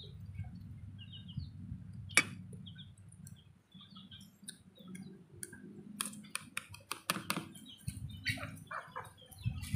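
Faint small-bird chirps in the background, with a run of wet chewing and lip-smacking clicks in the second half as a person eats with a full mouth.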